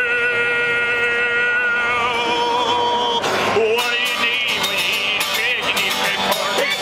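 A man singing to an acoustic guitar: one long, high held note with vibrato that breaks off about three seconds in, then more singing with quick rising and falling pitch over the strummed guitar.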